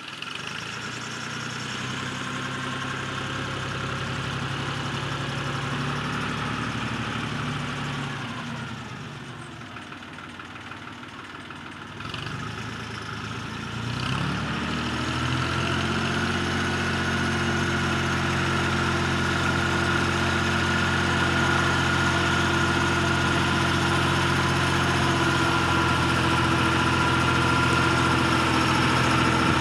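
Compact tractor's engine running under load while mowing weeds with a rear rotary cutter. It grows fainter for a few seconds, rises in pitch and level about halfway through, then runs steady and louder, with a steady high whine above it.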